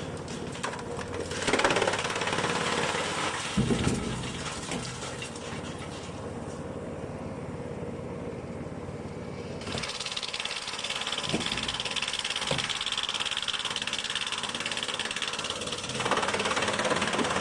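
Industrial drum wood chipper running, a steady mechanical din with several sharp knocks and surges, growing louder near the end.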